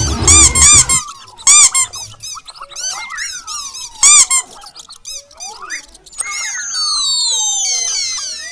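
Squeaky cartoon-mouse sound effects: loud clusters of shrill squeaks near the start, about a second and a half in and about four seconds in, with sliding squeaky glides between them and a run of quicker high chirps near the end.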